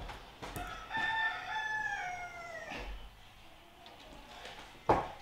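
A rooster crowing once, a call of about two seconds that drops in pitch at its end. Near the end comes a single sharp knock, the loudest sound.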